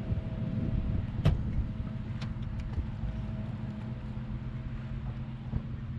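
Steady low engine hum, with a couple of light clicks about one and two seconds in.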